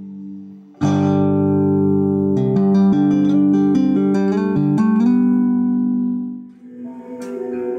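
Ibanez multi-string electric bass played with two-handed tapping: a chord is struck about a second in and rings on while a run of quick tapped notes plays over it. The chord fades out and a new, softer passage begins near the end.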